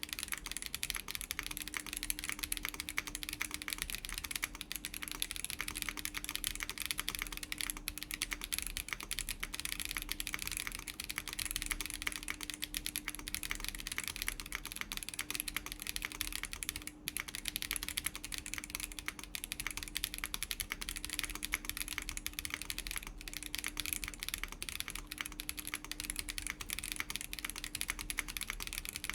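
Continuous fast typing on a Chilkey ND104 mechanical keyboard with factory-lubed WS Breeze linear switches, an FR4 plate and PBT doubleshot keycaps: a dense stream of keystroke clacks, with a brief pause about halfway through.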